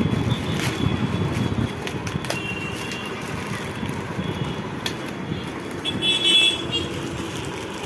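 Road traffic noise heard while riding along a road, with a vehicle horn honking briefly about six seconds in.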